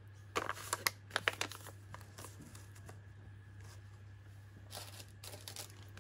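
Light rustling of a kraft paper sack and small clicks as rolls of washi tape are handled and set down on a felt mat, in a quick cluster near the start and once more briefly near the end, over a faint steady low hum.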